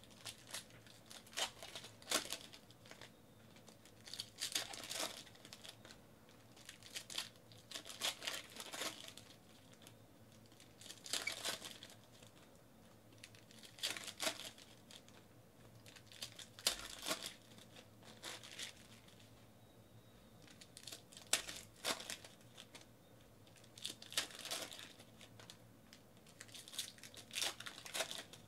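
Foil trading-card pack wrappers crinkling and tearing open, with cards being handled and flipped between packs, in short rustling spells every two to three seconds.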